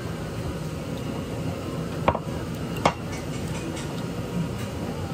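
Two sharp clinks of tableware less than a second apart, over a steady low background noise.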